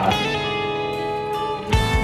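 Guitar music: a plucked chord struck at the start rings on, and a new note with a low thud comes in near the end.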